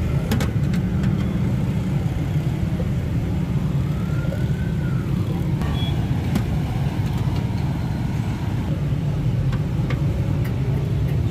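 A steady low rumble, with a few sharp clinks of a long steel ladle against a large aluminium cooking pot as curry and meat are stirred and lifted out.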